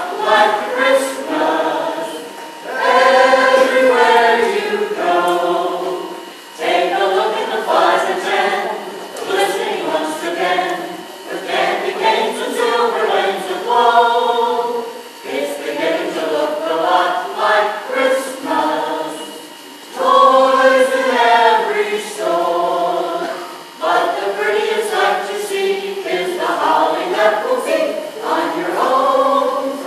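A mixed group of costumed carolers singing a Christmas carol in parts, a cappella, in phrases a few seconds long with short breaths between them.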